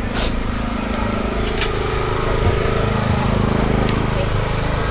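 A small engine running steadily with a low, even hum.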